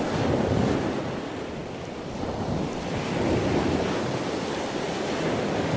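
Ocean waves: a steady rushing wash that swells and eases.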